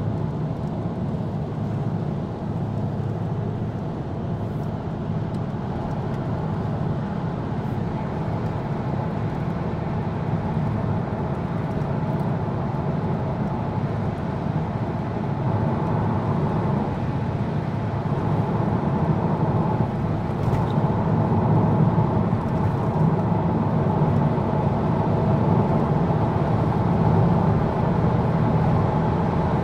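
Steady road and engine noise heard inside a car's cabin while driving at motorway speed. It grows gradually louder over the second half.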